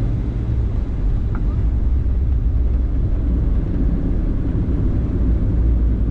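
Boeing 757-200 airliner heard from inside the cabin: a steady low rumble of engine and airflow noise during the landing phase.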